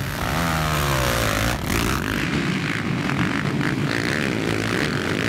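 A pack of racing quad bikes (sport ATVs) accelerating away together from a standing start, many engines revving at once. About half a second in, their pitch climbs as they pull away.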